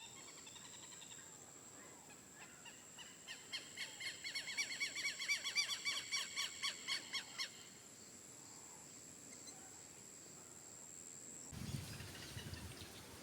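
A bird calling: a fast run of short, evenly repeated notes that grows louder over about four seconds and then stops abruptly, over a faint steady high-pitched tone.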